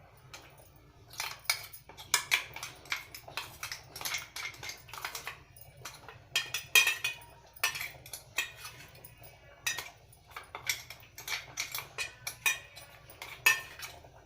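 A spoon scraping and clinking against a mixer-grinder jar, irregular strokes several a second with short pauses, as ground ginger paste is scooped out.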